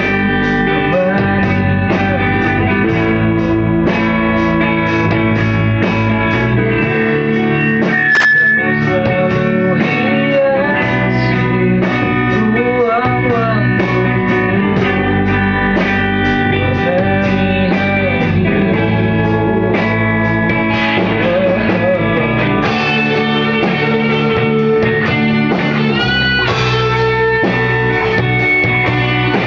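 A band playing live in rehearsal: guitar over a steady beat, with some notes bent up and down.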